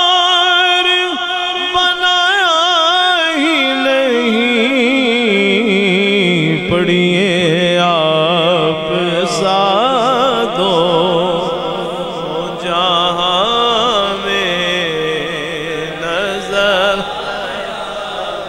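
A man singing a naat unaccompanied into a microphone: long, drawn-out melismatic notes with a wide vibrato. The pitch slides slowly down about an octave over the first six seconds, then he ornaments around the lower note.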